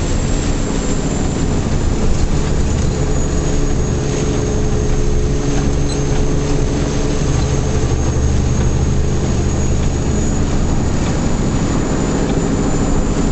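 Heavy truck's diesel engine running steadily at a constant pitch as the truck drives along, heard from inside the cab over a haze of road noise.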